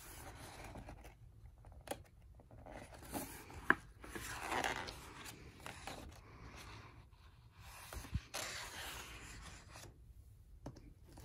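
Pages of a hardcover picture book being turned and smoothed by hand: paper rustling and sliding in three passes, with a few sharp taps in between.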